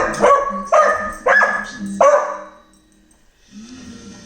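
A dog barking: four quick barks in the first two seconds, then a pause.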